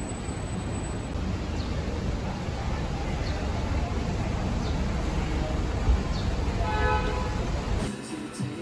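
City street traffic rumbling steadily, with a vehicle horn sounding briefly about seven seconds in. Near the end the traffic noise drops away to a quieter room.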